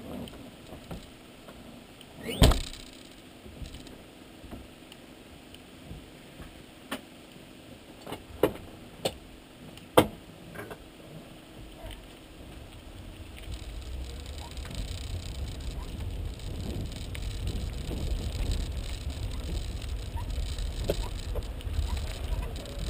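Several knocks and clicks from inside a City-EL electric car at rest, the loudest about two and a half seconds in. From about halfway a steady low rumble builds as the car rolls off over paving stones.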